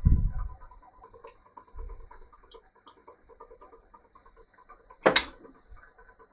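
Colchester Student lathe drilling into the end of a spinning workpiece with a twist drill fed from the tailstock chuck, the cut giving a light irregular ticking. A loud thump at the start and a sharp knock about five seconds in.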